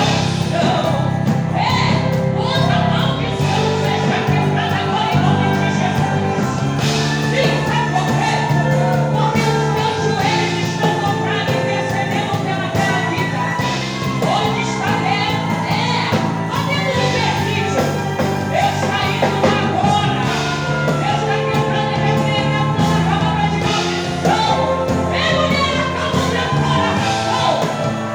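A hymn sung with instrumental accompaniment: a singing voice over steady bass notes that change every second or two.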